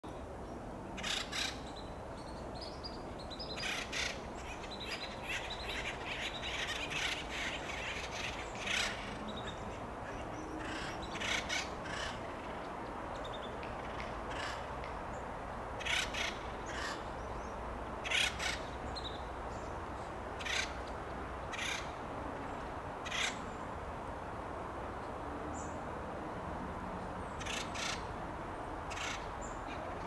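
Acorn woodpeckers giving loud, harsh calls, mostly in quick pairs, repeated every couple of seconds, with a rapid chattering run a few seconds in.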